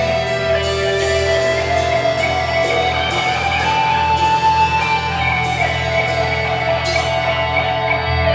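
Live rock band playing an instrumental passage: guitars holding sustained notes over a steady bass and a drum beat.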